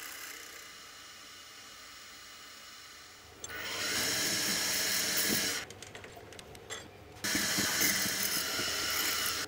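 A mini milling machine's spindle running with a drill bit, whining steadily, then growing louder twice, from about three and a half seconds in and again from about seven seconds in, as the bit bores into aluminium.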